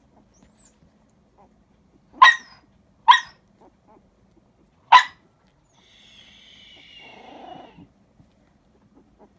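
Two-week-old puppies vocalising: three short, sharp yelps, the second under a second after the first and the third about two seconds later. Then comes a thin, high whine lasting about two seconds.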